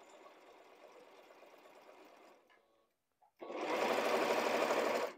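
Electronic domestic sewing machine stitching through fabric: a slower, softer run for about two seconds, a brief stop, then a fast, louder run of about a second and a half that stops suddenly.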